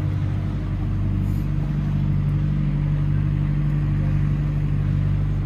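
A steady low mechanical hum that holds one pitch, with no change in level.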